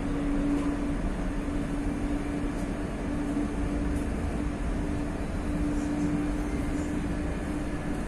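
Madrid Metro Line 2 train running through a tunnel, heard inside the carriage: a steady rumble with a steady hum that fades near the end.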